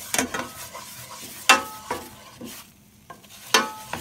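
A silicone spatula stirring and scraping a flour-and-grease roux around a nonstick skillet, with a low sizzle of the roux cooking. Three sharper knocks of the spatula against the pan, one right at the start, one about a second and a half in and one near the end, each with a brief ring from the pan.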